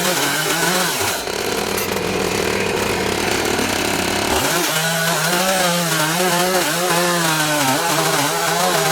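Husqvarna 365 two-stroke chainsaw running at high revs while milling a log in an Alaskan chainsaw mill. About halfway through the engine note turns clearer, and its pitch wavers up and down.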